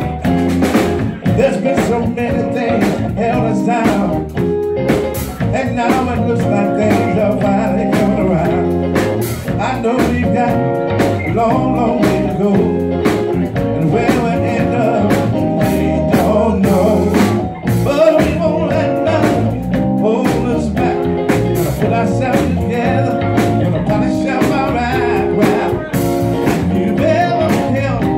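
Live band playing with electric guitar, electric bass and drum kit, steady drum beat throughout, and a lead vocalist singing over it.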